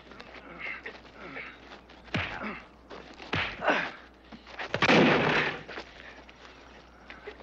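Sounds of a fistfight on a straw-covered barn floor: a sharp hit about two seconds in, more thuds, and a louder crash lasting most of a second about five seconds in.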